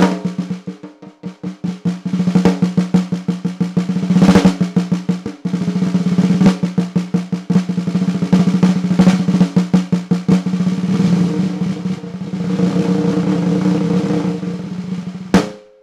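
Custom 14x7 poplar snare drum played solo with sticks: fast rolls and rapid strokes over a strong ringing drum tone. There is a brief break about five and a half seconds in, and it ends on a final hit near the end.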